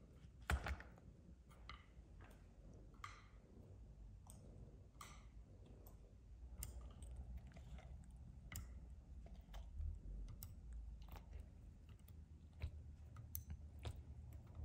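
Faint, scattered light clicks, roughly one a second, of thin wooden skewers being pulled from a whole boiled chicken and laid on a wooden plate.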